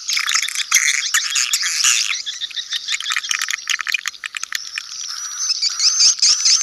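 Edible-nest swiftlet colony lure recording: a dense chatter of chirps and rapid clicks from many birds, the kind of 'sedot anakan' call played in a new swiftlet house to draw young swiftlets in. About five seconds in, a thin high whistle starts repeating above the chatter.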